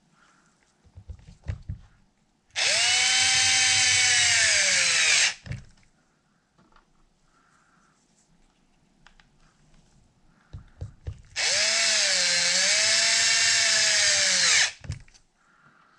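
Power drill driving the bolts on a 1/5-scale RC wheel, run in two bursts of about three seconds, its motor pitch sagging under load as each bolt tightens. A few handling knocks come before each run.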